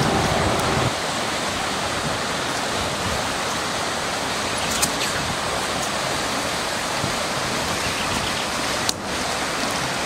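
Steady rush of a fast-flowing stream, an even hiss of running water.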